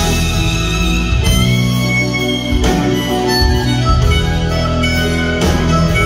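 Blues band playing live: a harmonica plays the lead over electric guitars, bass guitar and drums.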